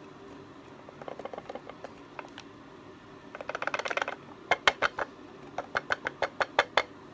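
Wooden puzzle box rattled and clicked in the hands: a short burst of quick light clicks, then a denser rattle, then a series of sharp separate clicks, two or three a second, as its loose parts knock inside.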